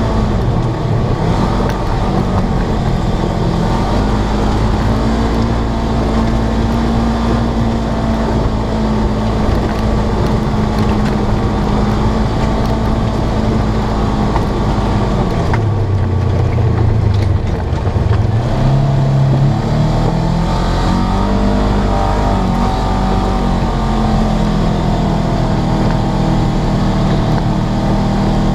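Polaris RZR 900S side-by-side's parallel-twin engine running under way, heard from inside the cab. The engine note drops lower for a few seconds past the middle as it eases off, then climbs back up.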